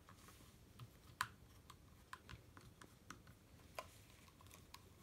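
Precision screwdriver turning small screws out of a plastic speaker housing: faint, irregular clicks and ticks.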